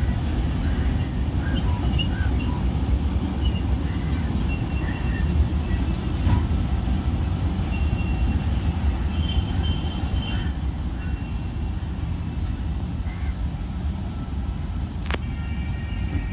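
Long Indian Railways express of LHB passenger coaches rolling slowly along the track, a steady low rumble of wheels on rail, with a few faint short high-pitched squeaks.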